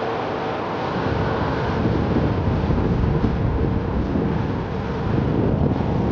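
Wind buffeting the microphone while riding a Onewheel electric board: a steady, loud rumble with a faint steady hum underneath.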